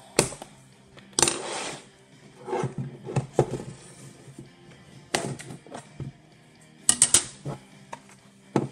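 A DVD drive being taken apart by hand: sharp metal clicks, a scraping rattle and several clatters as its sheet-metal cover and parts are pried loose and set down on a wooden table, with a quick run of three clacks about seven seconds in.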